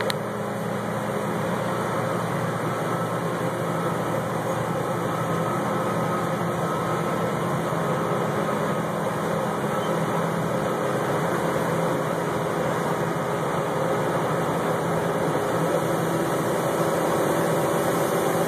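John Deere 9670 STS combine harvester running steadily, a constant engine and machinery hum with no change in pace.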